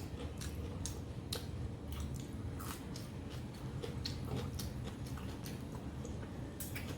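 Close-up eating sounds: wet chewing and lip smacks as a big mouthful of mutton curry and rice is chewed, with irregular short clicks and squishes.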